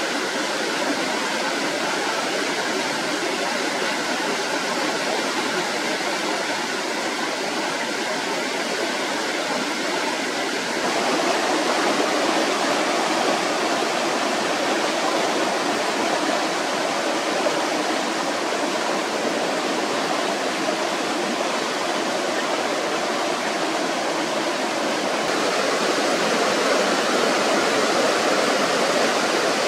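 Stream water rushing over rocks in small rapids: a steady splashing roar. It steps a little louder about a third of the way in and again near the end.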